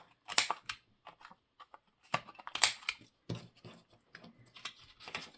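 Irregular short clicks and taps with some paper rustling, from paper and craft tools being handled on a work surface.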